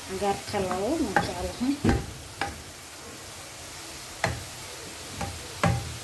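Wooden spoon stirring grated carrot, chopped greens and onion in a stainless steel pan over a steady sizzle of frying, scraping with squeaky wavering tones in the first second or so, then a few sharp knocks of the spoon against the pan.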